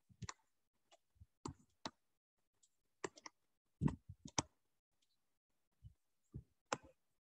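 Faint, irregular clicks and taps in small clusters from handwriting input on a computer, as boxes are drawn and a word is written on screen.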